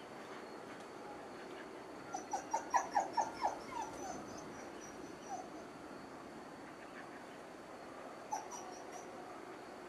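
A dog barking: a quick run of about seven short barks about two seconds in, then a few single barks later, over a steady faint background hiss.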